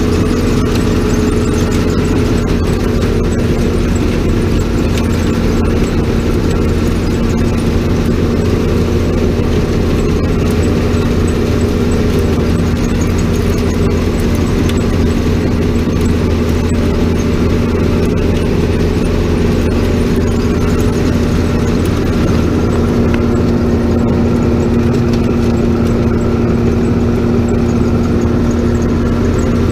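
Grape harvester's engine and machinery running steadily at working speed, a loud, even hum with a constant low tone.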